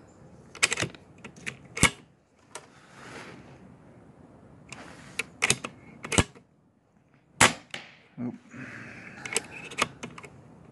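Cocking action and magazine of an RTI Priest .25 PCP air rifle being worked by hand: an irregular series of sharp metallic clicks and clacks, several of them loud, with soft rustling between. The slugs are not feeding properly because the cocking stroke is not pulled back far enough.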